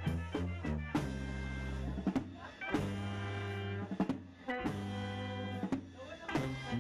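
Brass band dance music with drum. A beat of short, punchy chords gives way to long held brass chords three times, and the short beat returns near the end.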